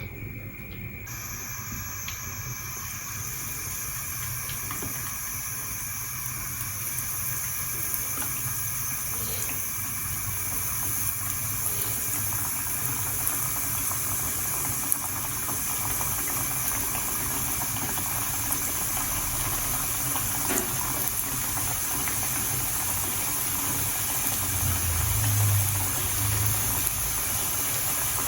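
Potatoes frying in hot oil: a steady sizzle that starts about a second in and slowly grows louder, with scattered small pops.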